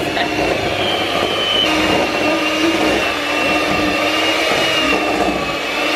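Electric hand whisk running steadily, its beaters creaming butter and sugar in a bowl: a continuous motor whine with a high, steady tone.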